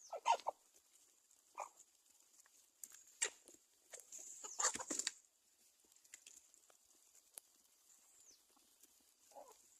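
Chickens clucking in short, scattered bursts, five or so spread over the stretch, the busiest about four to five seconds in.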